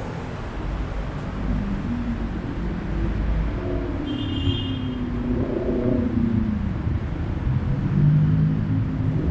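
Busy city street ambience: steady road traffic rumble from passing vehicles, with faint indistinct voices and a brief high beep about four seconds in.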